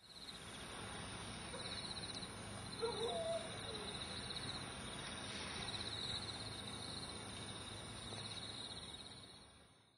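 Nature ambience of insects trilling, a high steady pulsing chirr, with a short lower-pitched animal call about three seconds in. The sound fades in at the start and fades out near the end.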